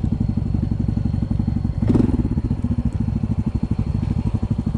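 Honda CT125's single-cylinder four-stroke engine idling at low revs with an even, rhythmic putter, the bike nearly stationary. A short louder sound breaks in about two seconds in.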